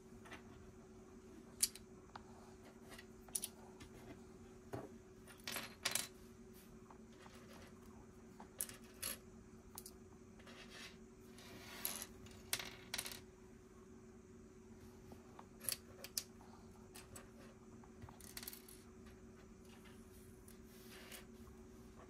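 Lego bricks clicking and clattering: plastic pieces being picked out of a pile and snapped together, in short scattered clicks and brief rattles over a faint steady hum.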